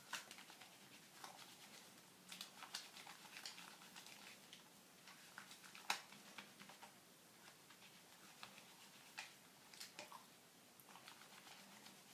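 Faint wet squishing and soft irregular clicks of hands working lather on a wet bar of Castile soap, one a little louder about halfway through.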